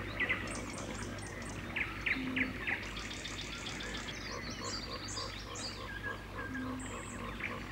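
Several birds chirping and trilling in overlapping calls, a forest ambience: short sharp chirps mixed with fast high trills.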